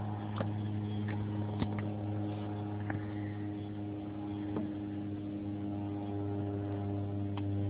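Boat motor running steadily, a low even hum, with a few faint clicks.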